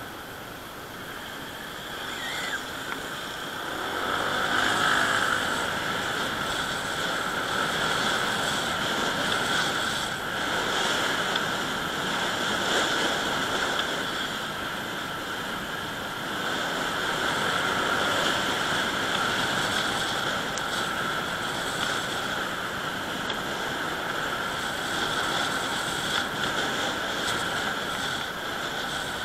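Riding noise from a motorcycle on the move: wind rushing over the handlebar-mounted microphone with the bike's engine running steadily. It grows louder about four seconds in as the bike picks up speed.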